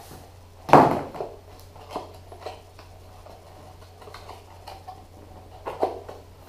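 Boxed software packages being handled and set down on a hard surface: a sharp knock about a second in, then a few lighter knocks and rustles, with a stronger knock near the end, over a faint steady low hum.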